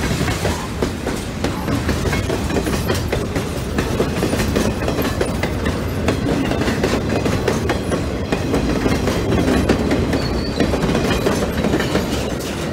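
Freight train cars rolling steadily past: a continuous rumble of steel wheels on rail with many quick clicks and clacks as the wheels cross rail joints.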